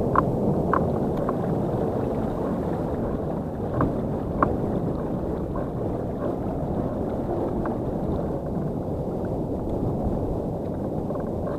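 Steady rushing of wind and water around a fishing kayak, with a few short light clicks and taps.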